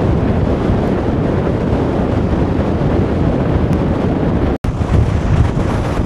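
Gale-force blizzard wind blowing across the microphone: loud, steady wind noise, heaviest in the low end. It breaks off for an instant about four and a half seconds in.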